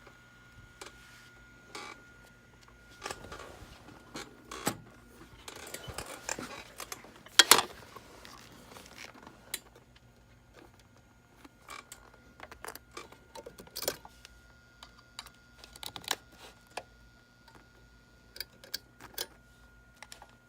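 Scattered clicks, knocks and rattles of audio cables and gear being handled and plugged in, with one louder knock about seven and a half seconds in. A faint steady hum runs underneath.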